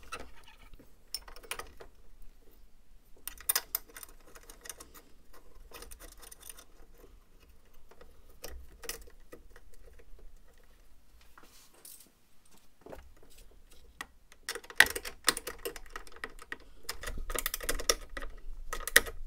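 Hand socket ratchet clicking as a 10 mm bolt is run down to fasten the catch can's bracket to the radiator mount, with light metallic clinks of the bracket and bolt being handled and lined up first. The clicking comes in quick runs, densest near the end.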